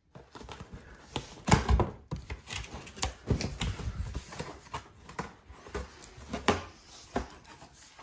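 Cardboard shipping box being opened: a blade slitting the packing tape along the top seam and the cardboard flaps handled, giving irregular scrapes, crackles and knocks, with a few louder knocks about one and a half seconds in.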